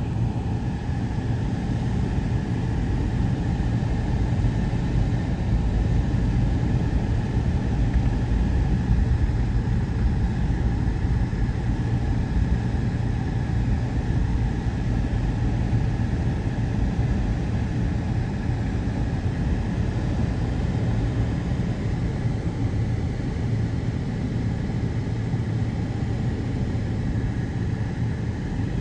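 A vehicle driving along the road: a steady low rumble of engine and road noise.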